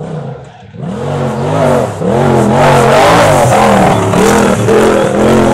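Side-by-side UTV rock bouncer's engine revving hard in repeated throttle bursts as it bounces up a steep dirt hill, its pitch rising and falling about twice a second. It gets louder about a second in and is very loud from about two seconds on.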